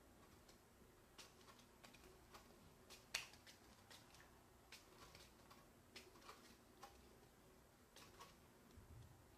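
Near silence broken by faint, irregular small clicks, a sharper one about three seconds in.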